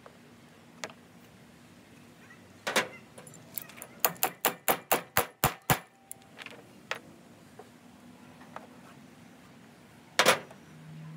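A run of about eight sharp, metallic-sounding taps, roughly four or five a second, with single knocks a few seconds before and after.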